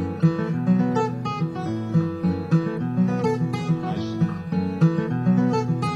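Solo acoustic guitar, fingerpicked: quick plucked treble notes over a repeating bass figure, in an instrumental piece in a West African style.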